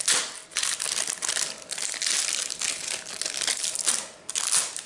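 Foil Pokémon TCG booster pack wrapper being torn open and crinkled in the hands: a dense, irregular crackling rustle with a louder surge shortly before the end.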